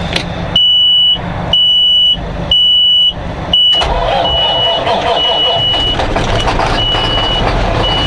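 Kenworth truck's dash warning buzzer beeping about once a second as the key is turned on, the low oil and air pressure warning. About four seconds in, the truck's diesel engine, taken for a Caterpillar, starts and runs, and the buzzer keeps beeping more faintly over it while the pressures build.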